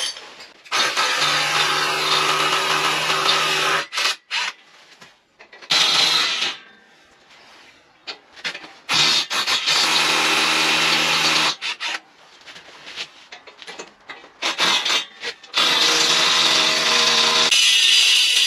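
Corded electric power tool running in four bursts of a few seconds each, working into concrete, with small knocks in the pauses between runs.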